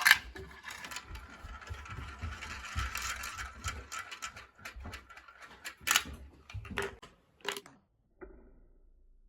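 Marbles rolling and rattling along a VTech Marble Rush plastic marble run. There is a sharp clack right at the start, continuous clattering for about four seconds, then several separate clacks.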